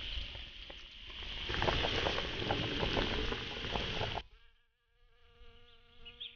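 Wok of chicken and pork-tripe stew at a hard boil, hissing and bubbling with small crackles. About four seconds in this gives way to the faint buzzing hum of a bee at the flowers.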